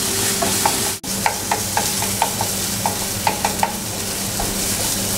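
Boiled spinach sizzling in a hot nonstick frying pan while a spatula stirs and spreads it, scraping and tapping on the pan surface many times over a steady frying hiss.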